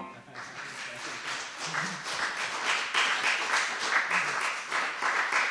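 A small audience clapping and applauding at the end of a song, a dense patter of many hands.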